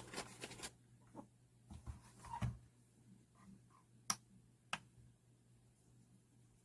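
Small slip-joint folding knife being handled: a few soft knocks, then two sharp clicks about half a second apart, over a low steady hum.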